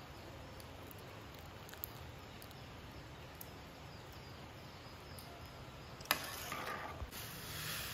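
Faint steady outdoor background noise, broken by a sharp click about six seconds in and a louder hiss of noise near the end.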